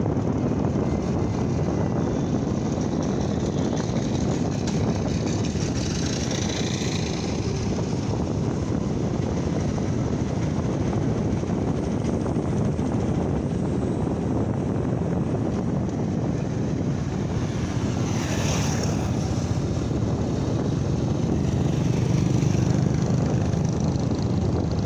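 Steady road noise from a moving motorcycle: the engine running at cruising speed under a constant low rush of wind on the microphone. There are two brief hissing swells, about six seconds in and about eighteen seconds in.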